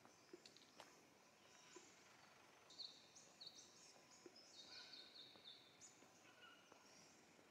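Faint birdsong: a run of short, high chirping notes in the middle, with a few scattered calls before and after.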